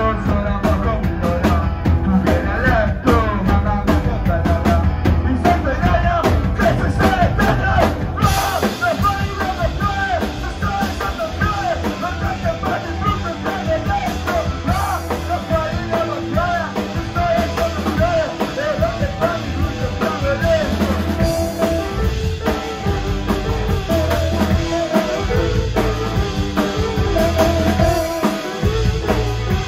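Live rock band playing loud: drum kit, electric bass and electric guitar, with a singer's voice over the top.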